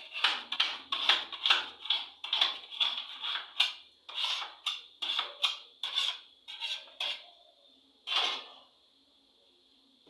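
Quick series of clattering knocks from metal bakeware and utensils being handled, about two to three a second, then one louder knock a little after eight seconds. A faint steady high whine runs underneath.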